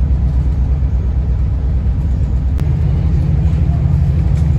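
Steady low rumble of a moving passenger train heard inside the carriage. There is a click about halfway through, after which the rumble is a little stronger.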